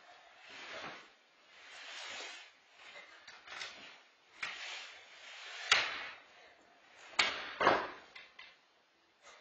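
Hinged playpen gate panels rattling and knocking as a toddler pushes and shoves against them, with a few sharp knocks and one heavier thump near the end.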